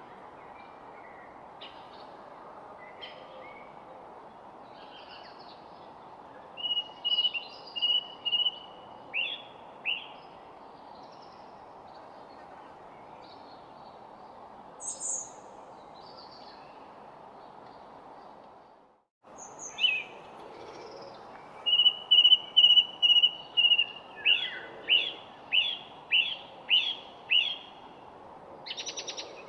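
Songbirds singing over a steady background hiss, the main phrase a high held note followed by a run of quick downward-slurred notes, repeated twice. The sound drops out briefly about two-thirds of the way through, then the song returns louder.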